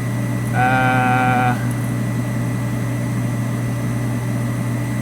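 Steady machine hum with a faint high whine, and a single held tone lasting about a second, starting about half a second in.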